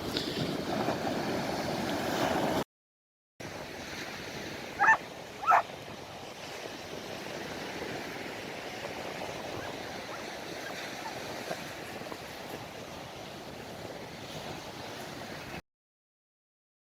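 Sea waves washing onto the beach: a steady rushing noise. About five seconds in, two short, loud animal calls half a second apart.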